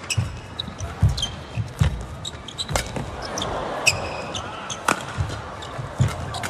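Badminton rally on an indoor court: sharp racket strikes on the shuttlecock about once a second, mixed with players' footfalls, lunges and short shoe squeaks on the court floor.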